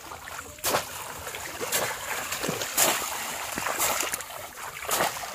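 Water splashing as a bamboo polo fish trap is plunged again and again into shallow, weedy paddy-field water, with sharp splashes about once a second.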